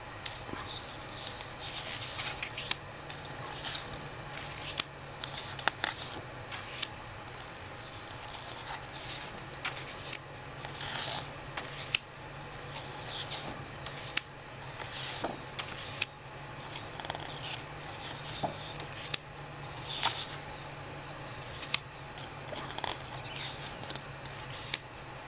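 Paper lobby cards handled by hand: a string of short sliding swishes and sharp light slaps as cards are picked up, moved and laid down on the stack, every second or two. A steady low hum runs underneath.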